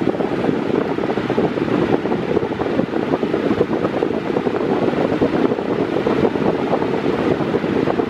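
Mondial Maxi Power 40 cm, 140 W six-blade fan running on its lowest speed, its airflow buffeting the microphone with a steady, gusty rush of air.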